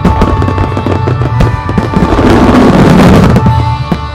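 Rapid-fire fireworks bursting over music, with a dense, louder run of overlapping bursts from about two to three and a half seconds in.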